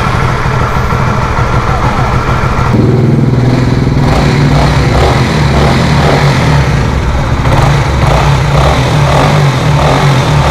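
Honda CBR150R's single-cylinder engine running through its stock exhaust, just after starting; a steady high tone drops out about three seconds in and the engine note keeps going with some rise and fall. The owner calls the stock exhaust's sound really quiet.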